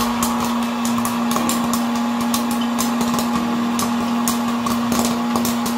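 Electric popcorn machine running with a steady motor hum, kernels popping and clicking irregularly inside it.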